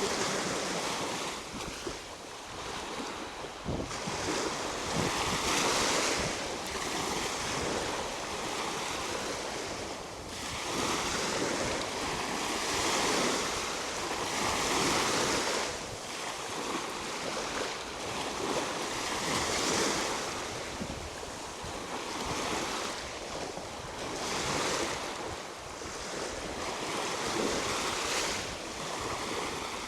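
Black Sea waves breaking and washing onto the shore, the surf swelling and falling every few seconds, with wind buffeting the microphone.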